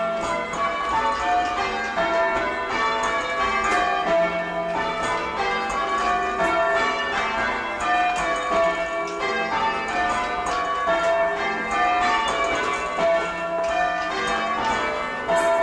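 Church tower bells change ringing, heard from the ringing chamber below: a steady, unbroken run of overlapping bell strikes. The sixth bell stays silent because its clapper has fallen out, leaving a gap in each round.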